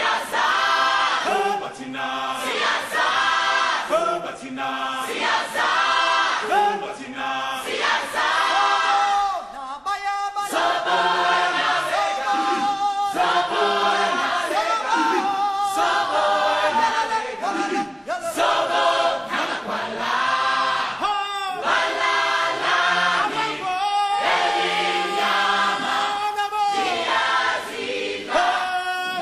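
A choir singing, several voices together in phrases with long held notes and brief pauses between lines.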